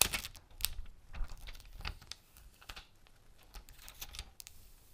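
Plastic shrink-wrap being torn off an iPhone box and crinkled close to the microphone: an irregular string of sharp crackles and clicks. The loudest crack comes right at the start.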